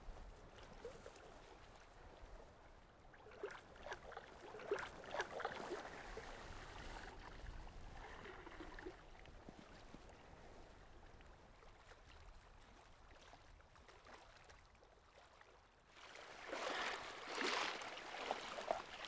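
Quiet splashing and lapping of shallow sea water, with louder splashing in the last few seconds as a person wades.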